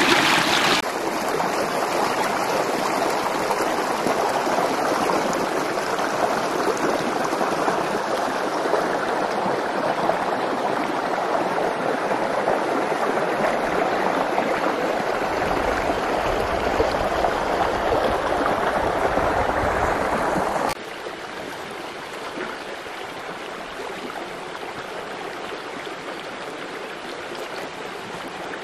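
Small rocky stream rushing and splashing over stones in a steady rush of water. About two-thirds of the way in it drops suddenly to a quieter, gentler flow.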